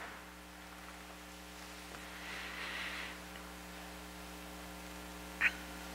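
Quiet room tone with a steady electrical mains hum. A faint soft hiss rises briefly a couple of seconds in, and there is a short sharp sound near the end.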